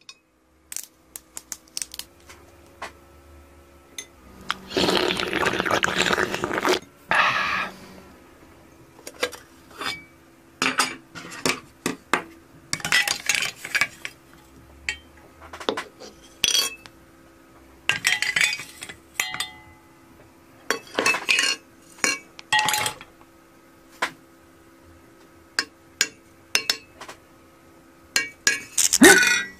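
Glass light bulbs, a metal ladle and a china plate clinking and clattering in a string of short knocks, with liquid poured for about two seconds near five seconds in. A loud clattering cluster comes just before the end.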